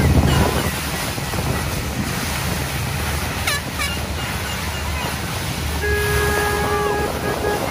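Water rushing and splashing past a small boat under way, with wind buffeting the microphone and a low rumble underneath. A brief steady tone sounds about six seconds in.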